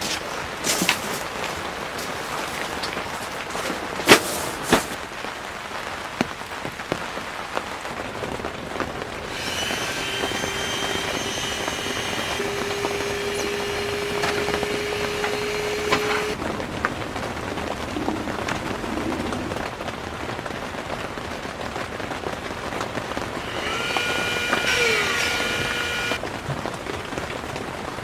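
Heavy rain pattering steadily on the fabric of a large tent shelter, with a few sharp drips or knocks in the first five seconds. A steady tone of unknown source sounds over the rain for several seconds in the middle and again briefly near the end.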